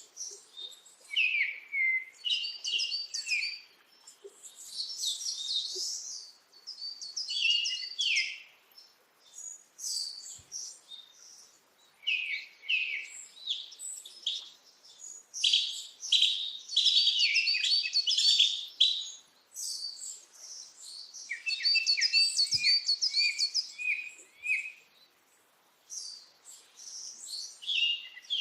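Small birds chirping and twittering in quick, high phrases, in bouts of a second or a few seconds with short pauses between.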